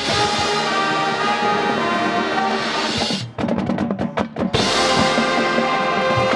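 High school marching band playing its field show: brass and winds hold sustained chords over percussion. About three seconds in, the winds drop out for about a second, leaving a run of sharp percussion strokes, then the full band comes back in.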